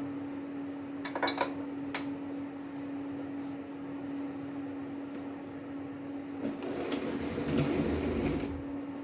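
Lathe running with a steady hum, driving an end mill in a milling setup on a 10 mm stainless steel plate. A few sharp metallic clinks come about a second in and again at two seconds. A louder, noisy stretch of cutting sound runs from about six and a half to eight and a half seconds in.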